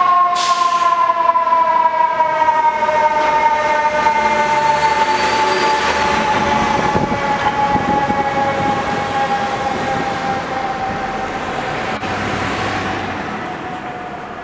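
Fire engine's mechanical siren winding down: one long steady wail that slides slowly lower in pitch and fades out near the end.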